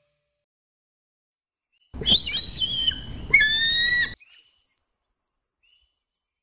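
A logo sound effect: two screeching bird-of-prey calls over a rushing whoosh, starting about two seconds in and cutting off suddenly after about two seconds. A faint, high, steady tone sounds beneath the calls and lingers after them, fading out.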